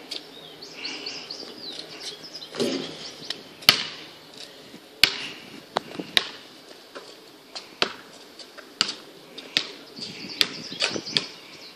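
Basketball bouncing on an asphalt driveway as it is dribbled: sharp, irregular bounces about once a second. Birds chirp faintly in the background.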